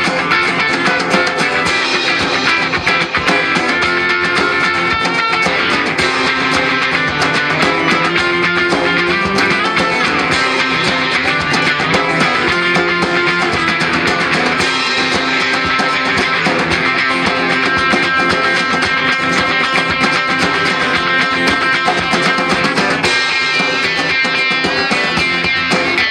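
Live band playing an instrumental passage without vocals: strummed acoustic guitar and electric guitar over drums.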